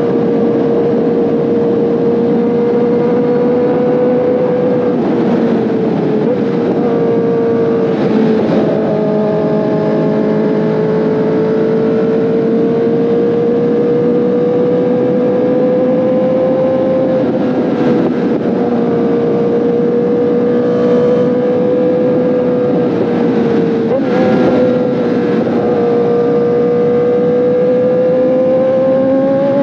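2024 Kawasaki ZX-10RR's inline-four engine running at a fairly steady speed under riding, its pitch drifting slowly down and back up, with a couple of brief dips, and starting to rise near the end. Wind noise sits beneath the engine.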